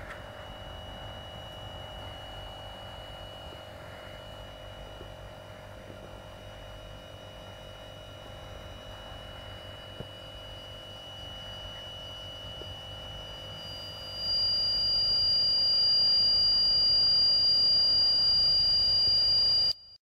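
Small electric air compressor running steadily with a thin whine while it pumps up a Mares Medisten pneumatic speargun toward 25 bar. About two-thirds of the way in, a loud, steady high-pitched tone joins it and holds until the sound cuts off suddenly.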